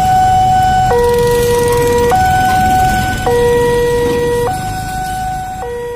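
Railway level-crossing warning alarm sounding a two-tone hi-lo signal, each tone held about a second and a quarter before switching, over a low rumble of idling traffic. It grows quieter near the end.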